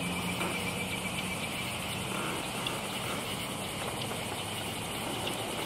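Steady evening chorus of crickets and other insects, a continuous high chirring.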